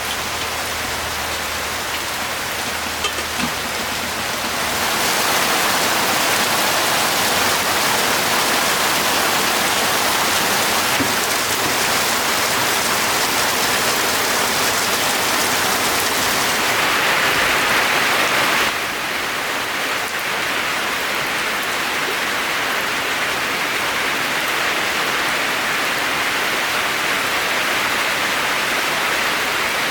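Steady hiss of falling or running water, such as rain or water pouring. It gets louder about five seconds in and drops back suddenly at about nineteen seconds.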